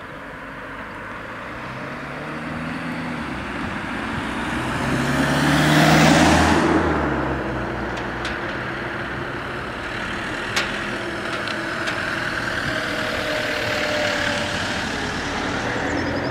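Road vehicles driving across a reopened level crossing: a car's engine and tyre noise swell to a peak as it passes close about six seconds in, then fade, with a single sharp knock about ten and a half seconds in, and a motorhome following with a gentler rise in engine and tyre noise.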